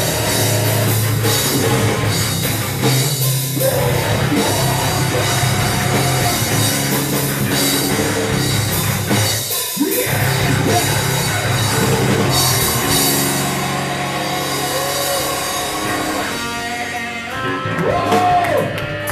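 A heavy rock band playing with a drum kit, loud and dense, with a short break about halfway through. Near the end the band thins out to a few held notes and one pitch that bends up and down.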